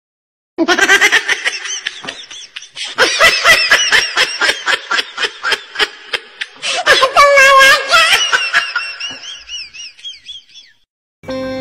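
A person laughing hard in rapid, high-pitched bursts, with a longer squealing stretch about seven seconds in, tailing off near the end.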